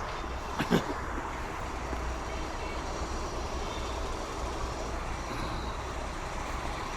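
Steady background rumble and hiss, like distant traffic or machinery, with a short knock about a second in.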